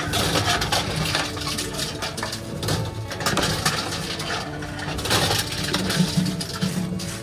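Reverse vending machine for drink cans running, its motor humming steadily while aluminium cans are fed in one at a time and clatter and click inside as they are taken.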